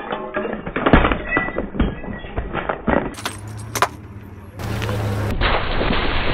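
Glass wine bottle crushed under a car tyre: a rapid run of glass cracks and tinkling shards with liquid splashing over the first three seconds. From about two-thirds of the way in, a steady rumble of the car rolling over the road.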